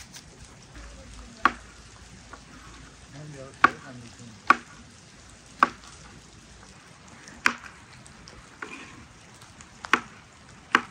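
Kitchen knife cutting quince on a wooden cutting board: sharp, separate knocks each time the blade meets the board, about seven of them at uneven intervals.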